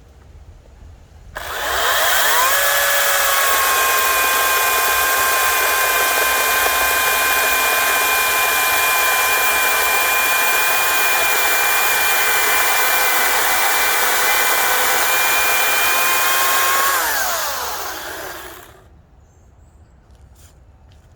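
Ryobi 40V 14-inch brushless battery chainsaw cutting wood. The electric motor spins up about a second and a half in and runs at a steady whine whose pitch sags a little under load through the cut, picks up again as the cut ends, then winds down when the trigger is released near the end.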